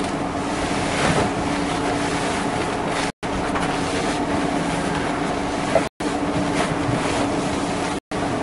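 RV furnace blower running steadily, a constant rushing of air with a low hum, as the furnace kicks in and pushes out warm air. The sound cuts out completely for an instant a few times.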